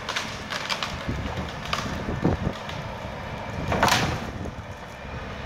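Bobcat compact excavator working in brush, heard at a distance: its engine runs under a steady noise, with scattered cracks and snaps of branches and wood as the arm and thumb work the pile. The loudest crash comes about four seconds in.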